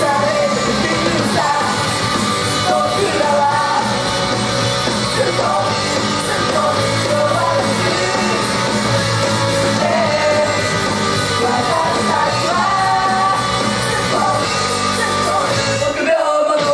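Live idol-pop song with loud rock backing music: young women sing and shout into handheld microphones, heard in a large room. The bass of the backing music drops out just before the end, as the song finishes.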